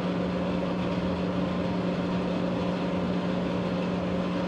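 Steady machine hum with a strong low tone and fainter overtones, holding even with no starts or stops.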